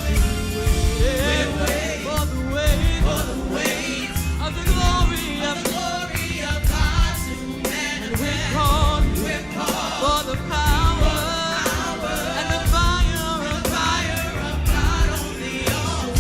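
Live gospel worship music: a band with bass and drums under lead and group singing.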